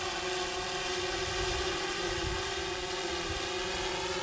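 Steady whirring hum of a hovering quadcopter camera drone's propellers, unchanging in pitch.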